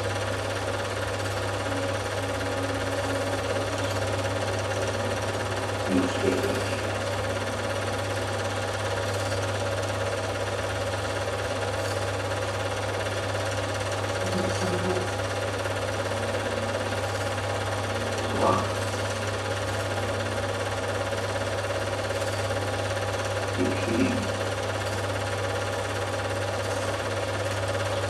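Steady whirr and fast clatter of a running film projector, with a constant hum under it; a few short louder blips break in now and then.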